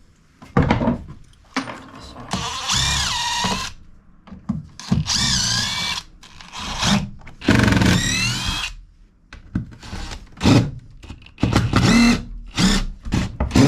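Power drill running in three runs of about a second each, its pitch rising and falling with the trigger, with short knocks and clatter in between as screws are driven out of the old floor boards.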